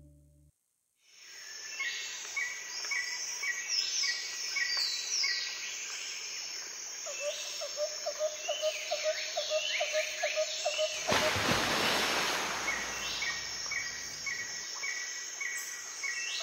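Birds calling over an outdoor ambience: many short falling whistles and rapid trains of repeated chirps, starting about a second in after a moment of silence. A rushing noise swells up about eleven seconds in and fades out about a second and a half later.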